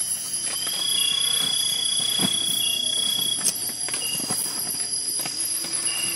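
Night insects in the forest trill in several steady, high-pitched tones, and a shorter chirp repeats every second or two. Over them come a few light knocks and scrapes of a spoon as rice is packed into bamboo tubes for lemang.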